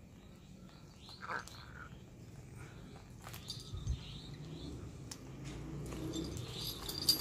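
Spotted wood owl feeding on a rodent on a leather falconry glove: small clicks, knocks and rustling as it pulls the prey apart, growing louder toward the end. A brief high chirp about a second in.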